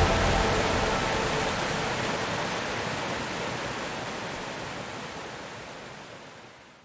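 Rushing water of a waterfall, a steady hiss with no tones that fades out gradually to nothing.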